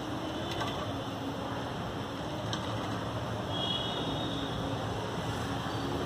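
Steady background hum and hiss, with a faint, short, high bird chirp about three and a half seconds in.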